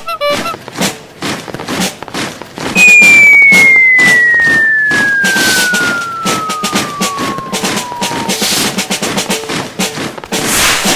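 Party sound effect: a dense, rapid crackle of firecracker-like pops, with a loud whistle sliding steadily down in pitch for about five seconds, starting about three seconds in.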